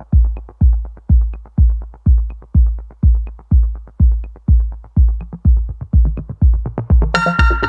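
Electronic dance music: a steady kick drum about two beats a second with light ticking between the beats, and a bright synth melody coming in near the end.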